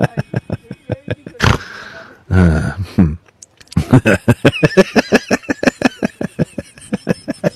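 Laughter in rapid repeated ha-ha pulses, with a short cough-like burst about a second and a half in and a low drawn-out vocal sound around two and a half seconds.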